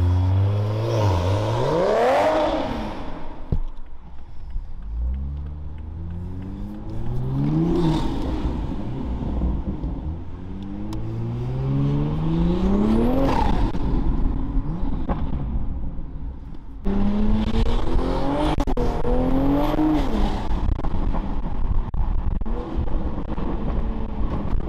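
Toyota A90 Supra with a straight-pipe titanium exhaust accelerating hard in about four pulls, the engine note rising with the revs each time and dropping off between them.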